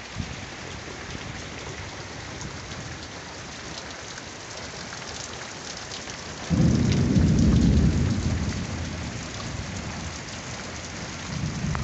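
Steady rain falling, with scattered drops ticking close by. About halfway through, a sudden low rumble of thunder breaks in, stays strong for a second or two and then fades slowly.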